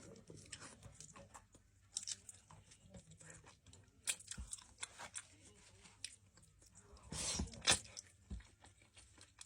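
A person chewing and biting into food with crackly crunching and wet mouth clicks, the loudest run of crunching about seven seconds in.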